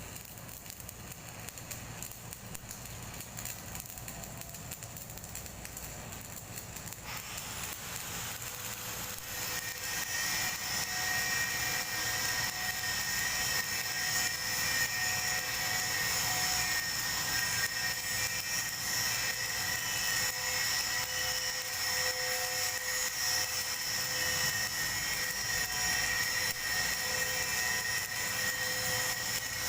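Metalworking on a pipe: a steady crackling hiss, joined about seven seconds in by a high motor whine that rises and then holds, growing louder a few seconds later.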